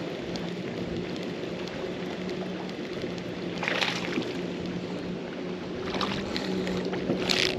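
Steady low hum of a small boat motor over the lapping of water against the hull, with two brief hissing bursts, one about halfway through and one near the end.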